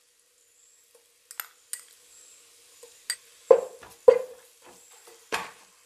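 A metal spoon clicks against a small ceramic bowl as ginger-garlic paste is scooped into a nonstick pot of frying onions. A plastic slotted spatula then stirs it in, knocking against the pot three times over the second half.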